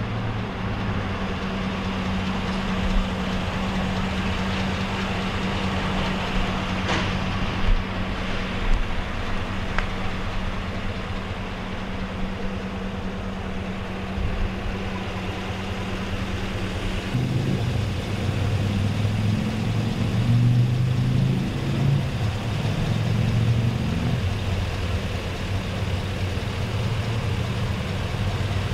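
A vehicle engine idling with a steady low hum. About two-thirds of the way through, the hum turns uneven and wavering for several seconds, then settles again. A few short knocks fall in the first third.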